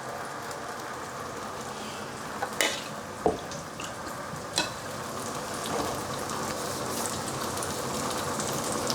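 Thin pancake batter sizzling as it cooks in a lightly oiled pan on medium heat: a steady crackling sizzle that grows slightly louder, with a few sharp clicks in the first half.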